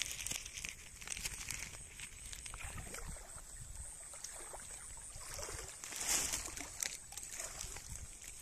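Hands rummaging in a wet plastic sack of freshly caught fish: plastic rustling and water sloshing and dripping, with scattered clicks and a louder rustle about six seconds in.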